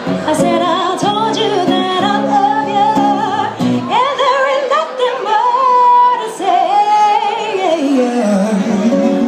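Live female vocal holding long, wavering notes with vibrato over a strummed acoustic guitar. The guitar drops out about four seconds in, leaving the voice alone, and comes back near the end.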